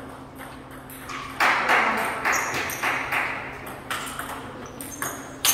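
Table tennis rally: the hollow plastic ball clicks off paddles and the table in quick back-and-forth strokes, with one sharp, loud hit near the end.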